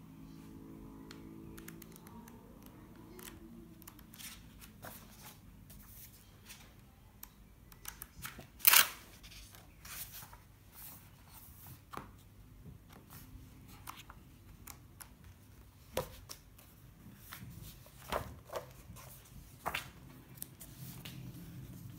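Pages of a thick paper booklet being turned one after another, with short rustles and flicks of paper throughout. The loudest page flip comes about nine seconds in.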